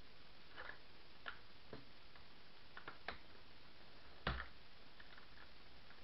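Pliers clicking and tapping on the lower front shock bolt of a Traxxas Rustler RC truck as the bolt is worked out of the plastic suspension arm. Small irregular clicks are heard, with one louder knock a little past four seconds in.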